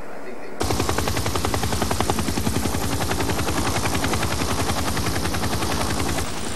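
Helicopter rotor blades chopping in rapid, even beats as the helicopter hovers low over the ground. The sound starts suddenly about half a second in and eases near the end.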